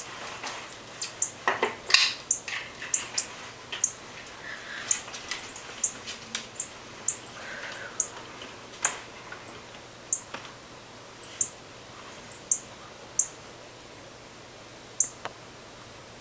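Small bird giving short, very high single chirps, repeated about once a second at irregular intervals, with a few softer, lower calls among them in the first half.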